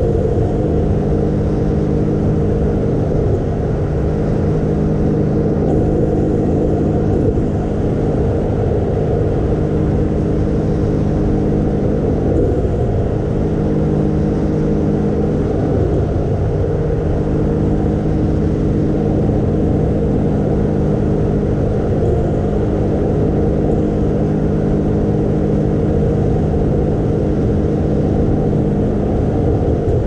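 Sea-Doo Wake Pro 230 personal watercraft running at steady speed, its engine a constant drone heard from a camera on the bow, with spray from the hull hissing alongside.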